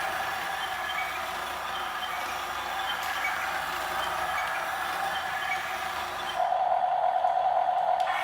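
Small electric motors of a Huina RC excavator whining as the model moves. The whine gets louder and more focused about six and a half seconds in.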